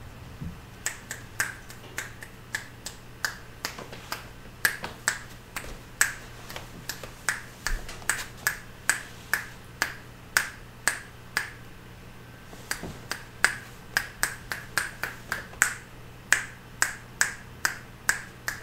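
Fingers snapping over and over, two or three sharp snaps a second with a few short pauses, to draw a kitten's attention.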